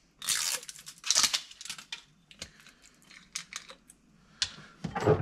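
Plastic tamper seal being torn and peeled off the cap of a small sauce bottle: two scratchy tearing bursts in the first second and a half, then a run of small clicks and snaps as the cap is worked open, with a louder knock near the end.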